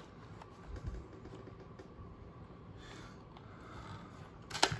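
Quiet handling of freshly punched planner paper, with a soft thump about a second in and a short cluster of sharp clicks and paper rustle near the end.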